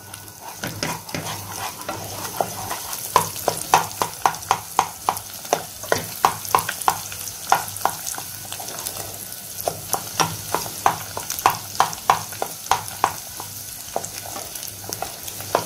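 An egg sizzling in hot oil in a frying pan, stirred and chopped with a wooden spatula. The spatula's quick scraping taps come about two or three a second and grow stronger about three seconds in.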